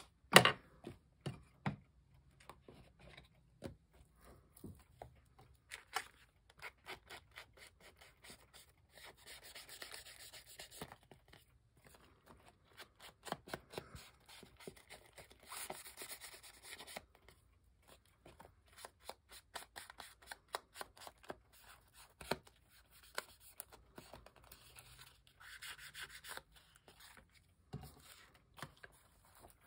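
Paper edges being inked: an ink pad or blending tool rubbed and tapped along cardstock, giving soft scratchy rubbing in several stretches with small taps between. There is a sharp tap right at the start.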